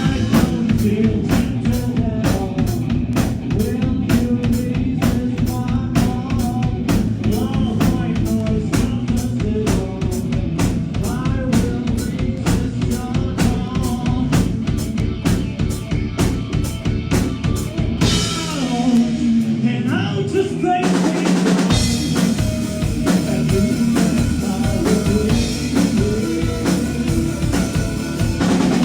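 Rock band playing live, an instrumental passage with the drum kit driving a steady beat of bass drum, snare and rimshots under bass and guitar. About eighteen seconds in, the bass and drums drop out for a few seconds, leaving the guitar ringing, then the full band comes back in.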